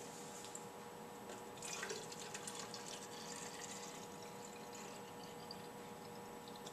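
Faint sound of dilute hydrochloric acid being poured from a plastic jug into a titration kit's plastic reservoir bottle, a thin trickle that starts about a second and a half in.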